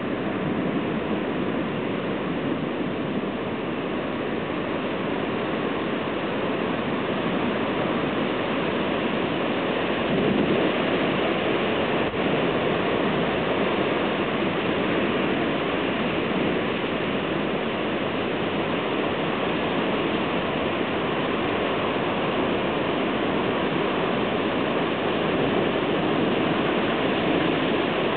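Heavy thunderstorm downpour: a steady, dense hiss of rain that grows a little louder about ten seconds in.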